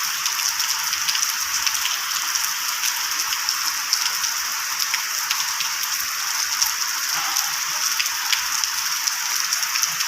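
Steady rain falling, a dense even hiss with many small ticks of single drops hitting.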